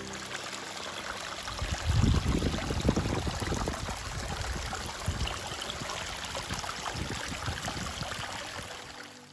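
Small mountain stream splashing and trickling over rocks in a steady rush of water. A burst of low rumbling about two seconds in is the loudest part.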